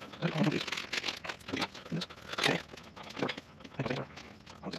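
Nylon tent fabric rustling and crinkling in irregular bursts as it is handled and pulled over a metal frame.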